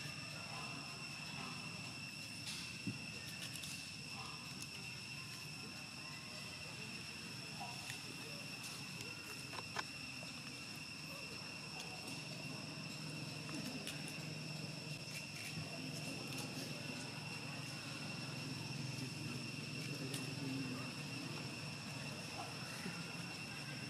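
Steady high-pitched insect drone holding one pitch, with a few sharp clicks.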